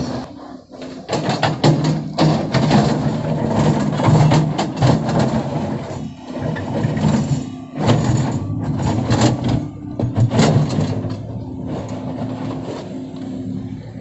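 JCB tracked excavator digging a trench: its diesel engine runs steadily while the bucket scrapes and knocks through soil and stones. The sound eases off over the last couple of seconds.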